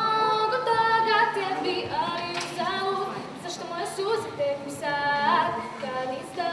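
A young girl singing solo, unaccompanied, moving between held notes.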